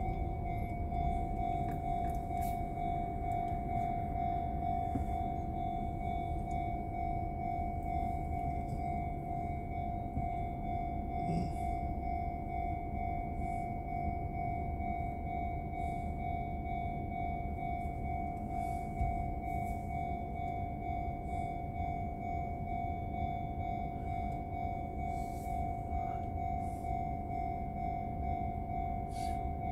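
Japanese railway level-crossing warning bell ringing steadily in a fast, even pulse, signalling an approaching train as the barriers come down. It is heard from inside the waiting car's cabin, over a low rumble.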